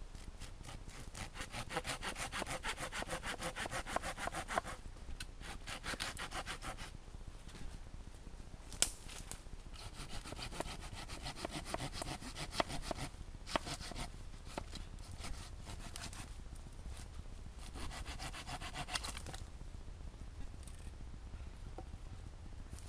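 Hand saw cutting through a wooden branch in several bursts of quick back-and-forth strokes, with short pauses between them. There is one sharp knock about nine seconds in.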